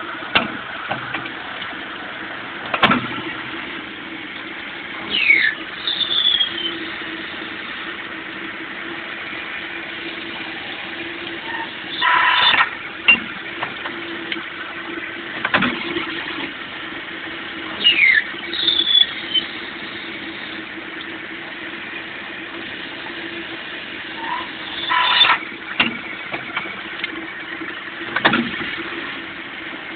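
Cam-type automatic lathe turning posts in automatic operation: a steady machine hum with a repeating machining cycle about every 12 to 13 seconds, each cycle bringing a sharp knock, a high squeal that falls in pitch, and a louder burst of high-pitched cutting noise.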